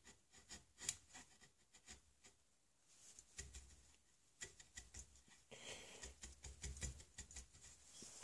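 Hand chisel paring the wood of a gunstock: faint, irregular clicks and short scrapes.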